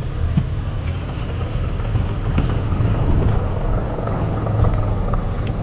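A moving road vehicle: a steady low engine and road rumble, with a few light knocks and rattles.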